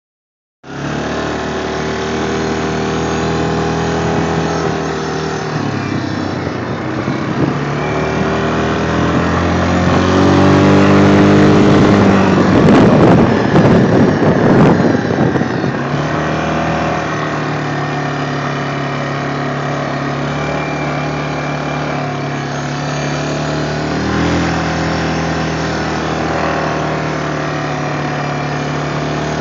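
Four-wheeler (ATV) engine running while the machine is ridden. The pitch rises and the sound grows louder and rougher for a few seconds about halfway through, then settles back to steady running.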